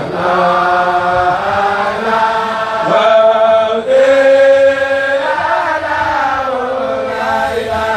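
Voices chanting Arabic religious verse, a Mouride khassida, in long held melodic lines that slide between notes without pause.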